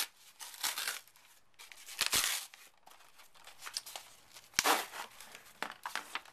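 Cardboard mailer being torn open by hand: a series of irregular rips and crinkles, the sharpest about four and a half seconds in.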